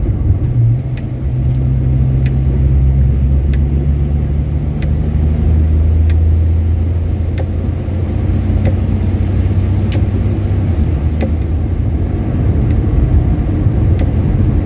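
Cabin sound of a 1961 Rover P4 100 on the move: its 2.6-litre straight-six engine and road noise, a steady low drone. Light clicks repeat about every second and a quarter.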